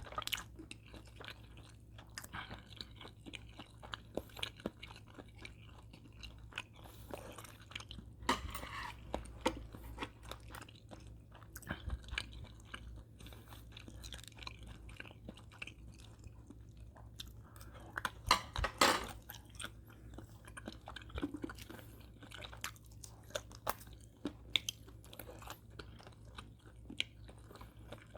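A person chewing food with many small irregular crunches and mouth clicks, a louder bout of crunching about 18 seconds in.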